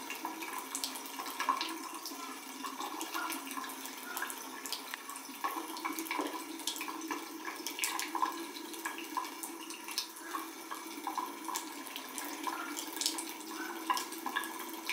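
Bathroom sink faucet running a thin, steady stream of water into the basin, with small irregular splashes.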